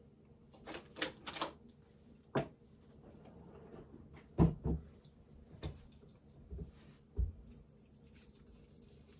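Scattered handling noises: a few light knocks and rustles as a daikon radish in its plastic wrap is handled on a kitchen counter, with a louder thud about four and a half seconds in.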